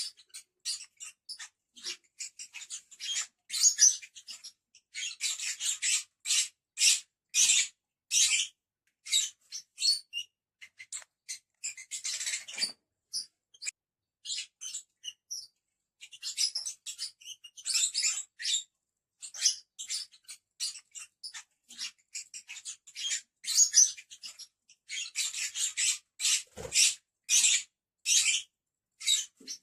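A group of lovebirds chattering: a near-continuous stream of short, shrill chirps and squeaks in quick runs, with only brief pauses.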